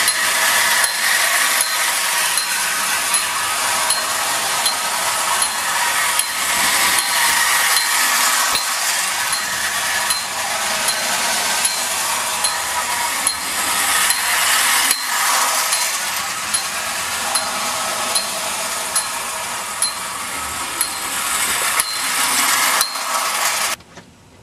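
Marx clockwork toy train running on tinplate track: the wound spring motor whirring with a metallic rattle of gears and tin, with a regular light tick underneath. The sound cuts off abruptly near the end.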